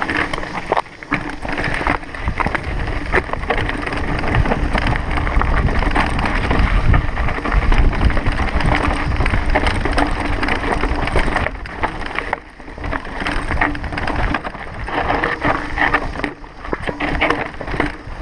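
Mountain bike rattling over a rocky trail, its tyres on loose stone giving many short knocks, with wind buffeting the microphone.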